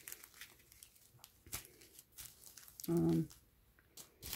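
Small plastic zip-lock bags of diamond painting drills crinkling and rustling in short scattered bursts as they are picked up and set down on the canvas. A brief voiced hum, about three seconds in, is the loudest sound.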